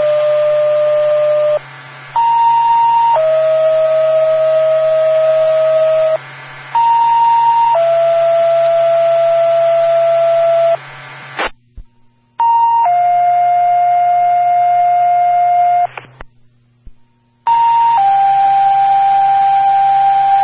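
Fire dispatch paging tones over a scanner radio: two-tone sequential pages, each a short higher tone of about a second followed by a lower tone held about three seconds. Five pages follow one another with brief breaks, each pair a little different in pitch, alerting fire stations to a call. A steady low radio hum runs underneath.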